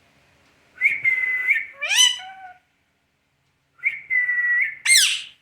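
A pet green parrot calls twice. Each call is a steady, high whistle lasting about a second that ends in a sharp, shrill squawk dropping in pitch.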